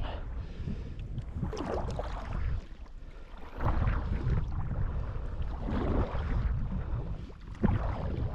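Wind rumbling on the microphone while water sloshes against a kayak, in surges about every two seconds.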